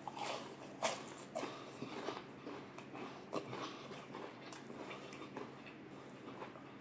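A person biting into and chewing crispy fried chicken: several sharp crunches in the first few seconds, then quieter chewing.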